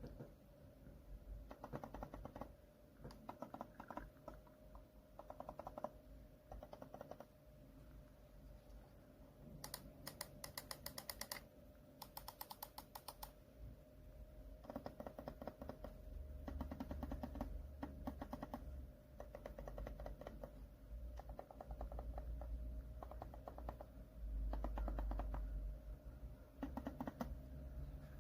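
Typing on an ASUS ROG Azoth mechanical keyboard fitted with TTC Ice Frozen V2 switches: bursts of rapid key presses with short pauses between. About ten to thirteen seconds in, two bursts of clicks sound sharper and brighter.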